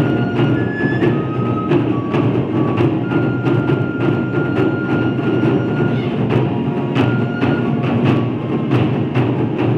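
Taiko drum ensemble playing: many drums struck with sticks in a steady, dense rhythm, with sharp clicking strikes cutting through. A high melody of held notes runs above the drums, one note held for about three seconds in the middle.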